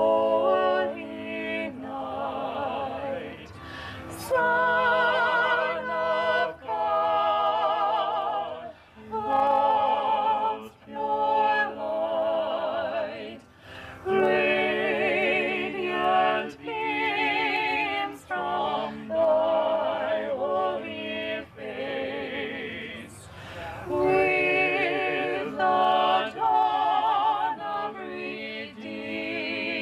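A cappella voices singing a holiday song in phrases of held notes with vibrato, with short breaks between phrases.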